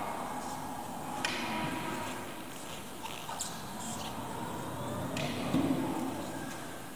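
EVERLIFT ELEP-20R stand-on electric pallet truck driving and turning, its electric drive motor whining with a pitch that rises and falls as it speeds up and slows. Two sharp ticks come about a second in and again past the five-second mark.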